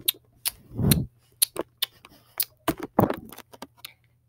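Irregular sharp clicks and small knocks, with two duller thumps about one and three seconds in: handling noise from the camera or the plastic toy figures being moved.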